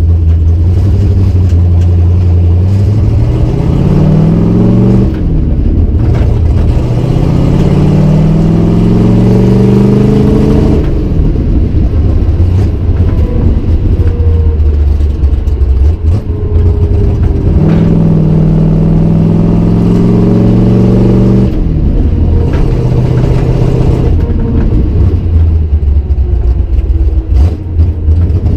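Cammed 351 Windsor V8 with forward-facing headers, heard loud from inside the cabin, pulling away through the gears of a manual gearbox. Its pitch climbs and falls off at upshifts about five and eleven seconds in, then it cruises with another gear change a little past twenty seconds.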